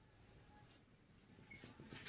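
Near silence: room tone, with a few faint clicks and rustles near the end.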